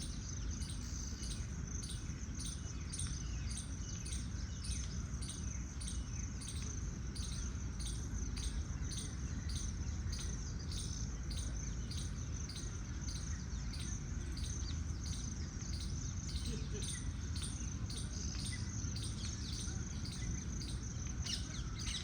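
Insects chirping steadily in a high, even rhythm of about two pulses a second, over a low steady rumble.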